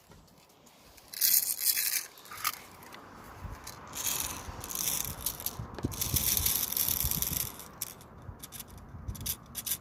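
Plastic airsoft BBs rattling, scraping and clicking as they are loaded into an airsoft rifle's magazine. The rattling comes in two spells, the first about a second in and the second, longer one from about four seconds in, followed by scattered clicks near the end.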